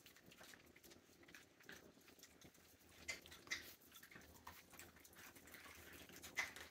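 Rhodesian Ridgeback puppies faintly chewing and smacking as they eat chicken fed from a hand, with a few sharper smacks or clicks about three seconds in and again near the end.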